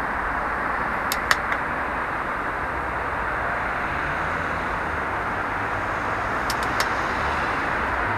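Steady hum of city traffic, with a few small sharp clicks about a second in and again a couple of seconds before the end.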